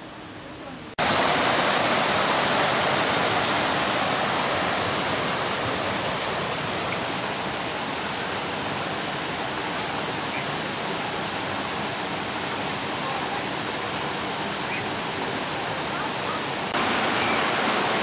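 Rushing water of a stream running over rocks, a steady loud hiss. It starts abruptly about a second in and jumps louder near the end.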